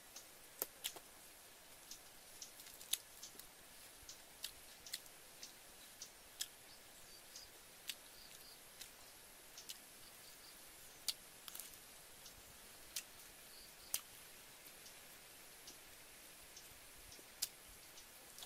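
A person chewing and smacking while eating sausages: irregular sharp mouth clicks, about two a second, over a faint steady hiss.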